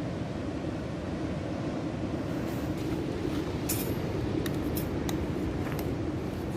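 Steady rumble of surf and wind, with a scattering of light clinks in the second half.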